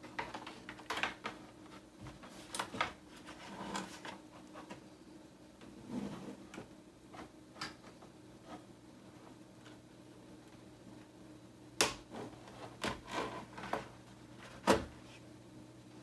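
Scattered clicks and knocks of a mechanical keyboard and desk things being handled while the keyboard is connected, with two sharper knocks in the last few seconds.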